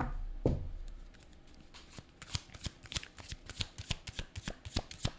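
A tarot deck being shuffled by hand: two knocks as the deck is handled in the first half second, then a quick run of cards flicking and slapping together from about two seconds in.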